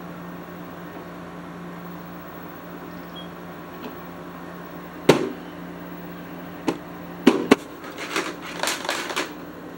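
Steady low electrical hum, then a sharp knock about halfway through, followed by a few clicks and a run of bumps and rustles near the end as the phone camera is handled and set down in a new spot.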